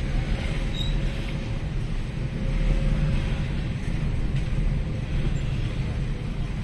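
Inside a moving car: steady low rumble of the engine and tyres on the road.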